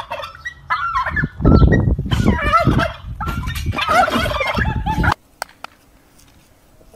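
Domestic turkeys gobbling again and again over a low rumble, for about five seconds. The sound then cuts off abruptly to faint background with a couple of short clicks.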